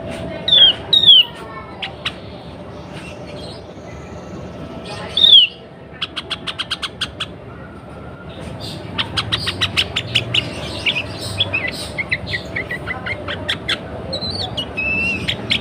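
Sooty-headed bulbul (kutilang) calling, which the uploader presents as a female in breeding condition. A few loud down-slurred whistled notes come first, then a quick run of short ticks about six seconds in, then a long busy chatter of short notes.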